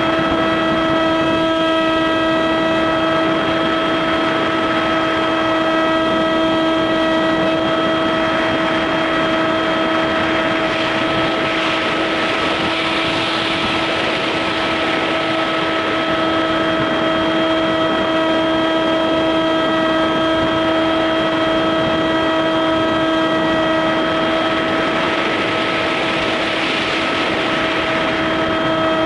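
Electric motor and propeller of a foam RC plane, heard from a camera mounted on its nose: a steady whine at one unchanging pitch. Wind rush swells over it twice, midway and near the end.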